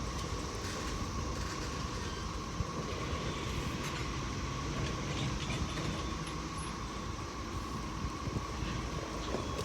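Freight train led by a GE ES44AH diesel locomotive rolling steadily into the yard, a continuous low rumble with a few faint wheel clicks. Cicadas keep up a steady buzz in the background.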